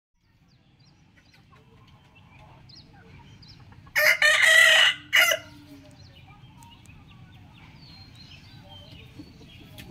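Rooster crowing once, a single loud crow about four seconds in that lasts about a second and ends with a short separate final note.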